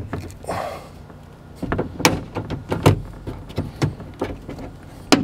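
Outer window belt molding on a 2015 Jeep Grand Cherokee door being pried off the door frame with a plastic belt-molding puller and trim stick: irregular sharp clicks and snaps, with a scraping rub about half a second in, as the tight molding works loose.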